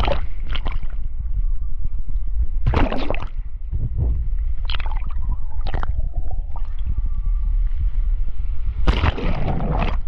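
Sea water sloshing and splashing around a camera held at and under the surface in the waves: a steady low rumble of water, broken by short bursts of splashing and bubbling gurgles, loudest about three seconds in and near the end.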